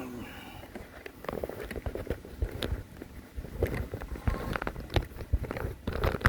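Irregular light knocks and thumps, starting about a second in.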